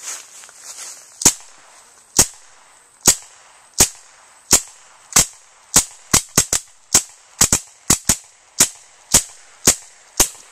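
Air guns firing BBs and pellets in quick succession at a steel trap: about nineteen sharp cracks, roughly one every two-thirds of a second, crowding closer together in the middle where shots overlap.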